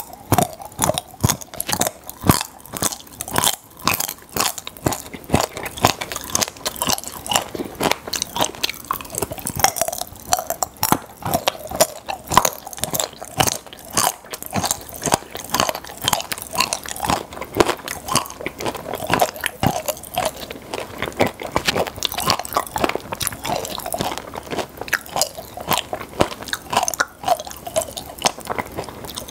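Close-miked chewing and crunching of popping-candy chocolate, with a dense, irregular stream of small crackles and clicks throughout.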